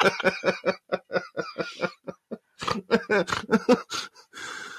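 Laughter in quick repeated pulses, breaking off about a second and a half in and starting again, ending in a breathy exhale.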